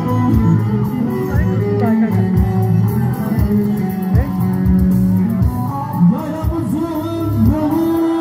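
Turkish folk dance music playing for a line dance: a steady beat, held melody notes and a singing voice, the singing growing more prominent about six seconds in.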